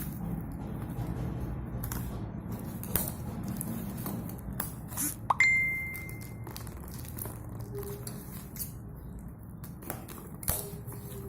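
Light clicks and knocks, with one sharp clink about five seconds in that rings on as a clear tone for about a second.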